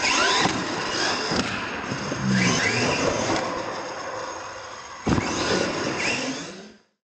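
R/C monster truck's motor whining in rising sweeps as it is throttled through a jump, with a sharp thud about five seconds in as the truck lands.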